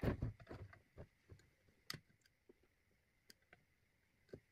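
Light knocks and clicks from an opened Ryobi 40V lithium battery pack and a soldering iron being handled on a wooden workbench: a quick cluster of knocks at the start, then scattered single clicks. A faint steady high tone runs underneath.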